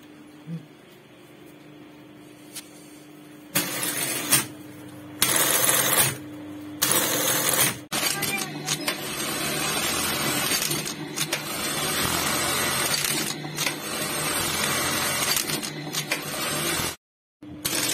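Juki industrial buttonhole sewing machine: a steady motor hum, then three short bursts of running about a second each, then a long stretch of continuous rapid stitching as it sews a buttonhole in shirt fabric.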